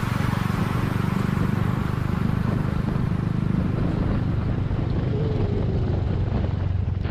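A motorcycle engine running steadily, its rapid even firing pulse heavy at the low end.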